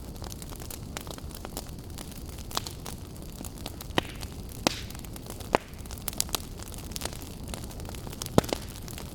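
Wood fire burning, a steady low rush under irregular crackles and sharp pops, the strongest pops about four, five and a half, and eight and a half seconds in.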